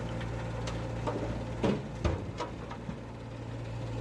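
A steady low machine hum with a handful of sharp clicks and knocks, the loudest two about a second and a half and two seconds in.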